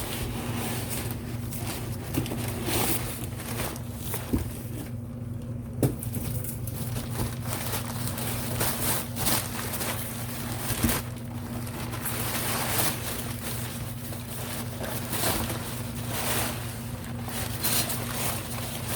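Packing material rustling and crinkling in irregular bursts as a shipping box is unpacked by hand, over a steady low hum.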